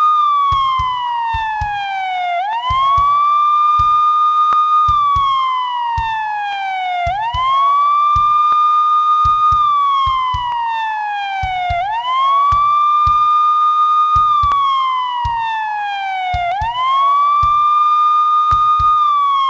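Police siren in a steady wail: each cycle rises quickly, holds its high note for about two seconds, then slides slowly down, repeating about every five seconds, four times over. Irregular low thumps sound underneath.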